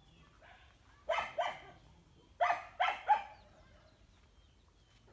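A dog barking: two barks about a second in, then three more around the middle.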